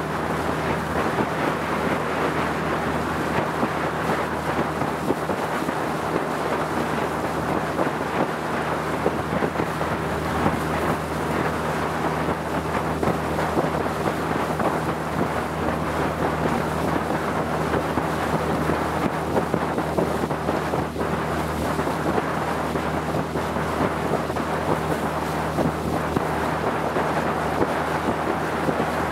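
Motorboat engine running steadily at cruising speed, a low even drone under a constant rush of water along the hull and wind.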